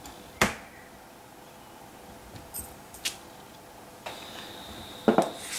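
Clicks and knocks of papercraft tools and stamps being handled on a craft desk: a sharp knock about half a second in, a few lighter clicks around the middle, and a double knock near the end. A faint steady high whine starts about four seconds in.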